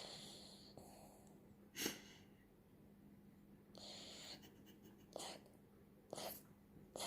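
A poodle snoring: faint, irregular noisy breaths, a short sharp one about two seconds in and several more through the second half.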